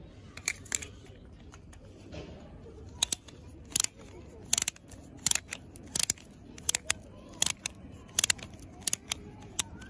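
Toy spin-top launcher's red plastic propeller disc clicking as it is fitted and worked onto the blue launcher's tip. The sharp clicks come mostly in close pairs, about one pair every 0.7 s from about three seconds in.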